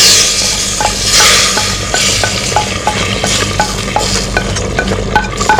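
Hot tempering of mustard seeds, curry leaves and dried chilli in oil sizzling as it is poured into the curry, loudest in the first couple of seconds and then easing. A spoon stirring it in, clinking against the pan about three times a second.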